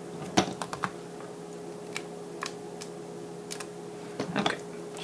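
Scattered light clicks and taps as hands place a clear stamp and shift paper on a Stamparatus stamping platform, several close together near the end, over a faint steady hum.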